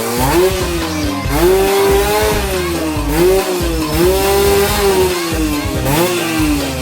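Yamaha TZM two-stroke single-cylinder engine revving through its original exhaust, the pitch climbing, holding and dropping back several times.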